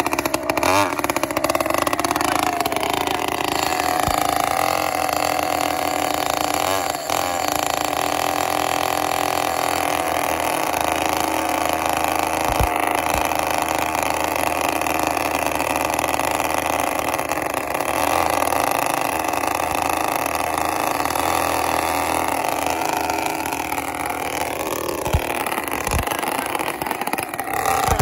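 Small two-stroke weed-trimmer engines of a six-engine RC pulling tractor running steadily, while a handheld electric starter is used to start more of them.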